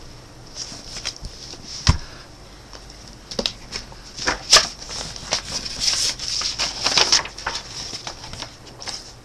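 Paper rustling and handling clicks as a hardcover book is opened and its pages turned, with a single dull thump about two seconds in.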